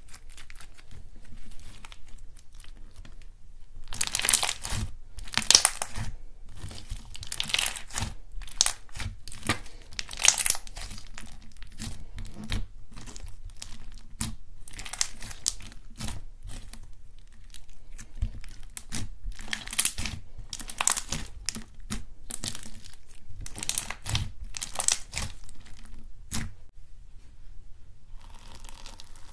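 Hands kneading and pressing a slime, giving irregular bursts of crackling pops. Near the end the sound stops for about a second, then a fainter, steadier crackle follows as foam-bead slime is handled.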